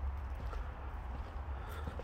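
Footsteps knocking on the wooden planks of a footbridge, over a steady low rumble.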